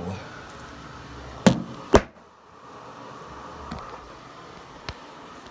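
Two sharp knocks about half a second apart, then a lighter click near the end, over a faint steady room hum.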